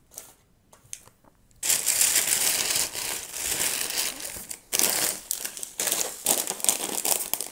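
A plastic snack bag of pretzels crinkling loudly as it is pulled out and handled. It starts about a second and a half in, with a brief pause a little past halfway.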